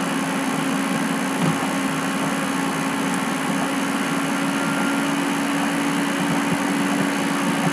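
Steady mechanical hum with a low, unchanging tone over an even hiss.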